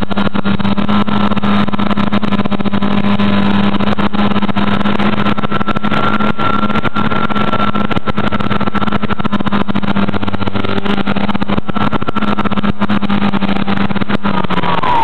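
RC plane's motor and propeller running steadily in flight, heard from a camera taped onto the plane, a loud even whine with frequent crackles on the microphone.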